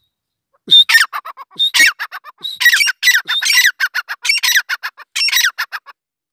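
Grey francolin (teetar) calling: a loud, rapid run of shrill notes, each sliding down in pitch, in repeated phrases broken by short high whistles, stopping shortly before the end.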